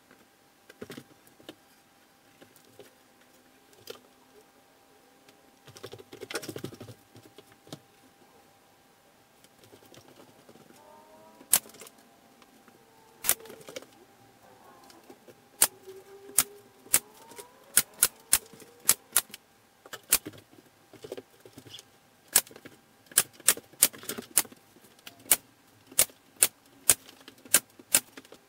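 Pneumatic nail gun firing into a wooden cabinet, a string of sharp cracks. They come only now and then at first, then one or two a second through the second half.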